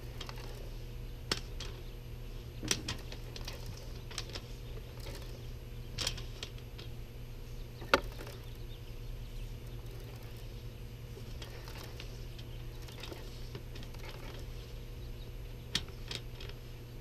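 Ridgid SeeSnake sewer camera push cable being fed by gloved hands into a plastic vent stack: scattered light clicks and taps of the cable against the pipe, the sharpest about eight seconds in, over a low steady background noise.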